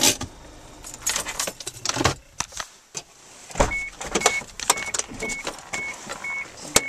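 Rustling and clicks of someone moving about in a car, a thump, then the car's warning chime beeping steadily about twice a second, starting a little before four seconds in.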